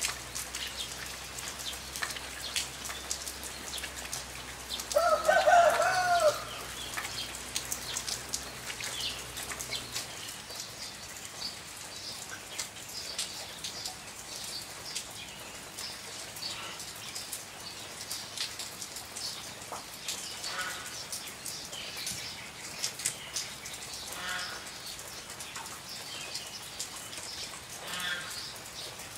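Rain pattering and dripping steadily. About five seconds in there is one loud animal call, a little over a second long, that rises then falls in pitch, and later come a few faint short calls.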